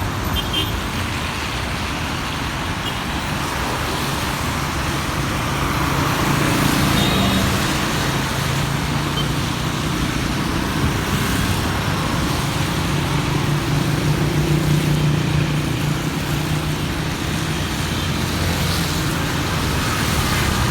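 City street traffic on a rain-wet road: a steady hiss of tyres with cars' engines running past. One vehicle's engine is loudest about two-thirds of the way through.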